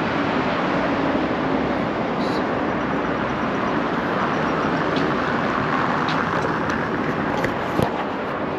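Steady road traffic noise from cars on a multi-lane road alongside, swelling in the middle as a vehicle passes. A sharp handling knock on the camera near the end.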